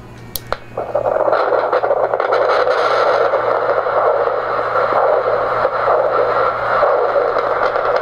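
Handheld Doppler probe over the jaw joint, heard through its speaker: a click, then a steady hiss that comes up about a second in. This is the Doppler's background noise with the jaw at rest.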